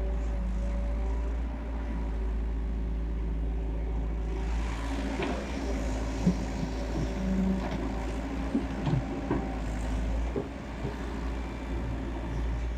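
Excavator diesel engine running steadily. From about halfway in, irregular knocks and clatter are heard, typical of the machine's digging work.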